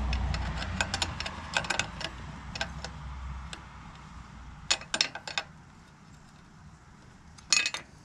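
Small metallic clicks and taps as a nut is threaded by hand onto a Harley-Davidson Sportster's choke cable bracket, over a low rumble that fades out about halfway through. A brief louder clatter of clicks comes near the end.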